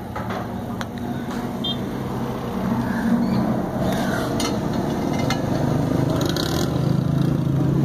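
Car engine running steadily, a low hum that grows slightly louder, with a few light clicks.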